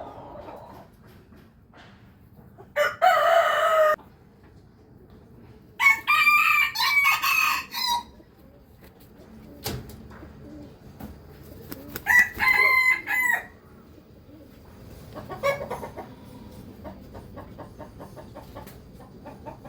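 Roosters crowing: three long crows about three, six and twelve seconds in, with a shorter call near fifteen seconds.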